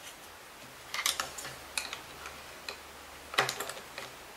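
Light clicks and taps of hard plastic as a Kirby Avalir vacuum's switch part is handled and pushed into the vacuum's body: a few clicks about a second in, single ticks after, and a louder cluster of clicks near the end.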